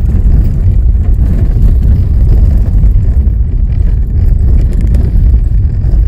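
A vehicle driving: a loud, steady low rumble of engine and road noise.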